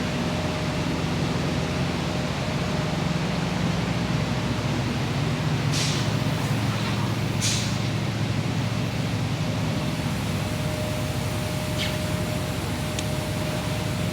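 Steady low machine drone, with two short hisses of air about six and seven and a half seconds in and a few faint clicks later.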